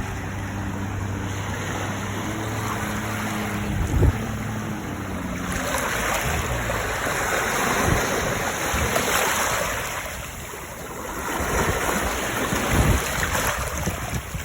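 Water sloshing and surging close by, with wind on the microphone, swelling and easing twice. A steady low motor hum runs under it for the first five seconds or so, then fades out.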